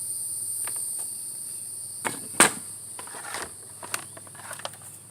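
Steady high-pitched chirring of insects, with a few sharp knocks and clicks, the loudest about two and a half seconds in.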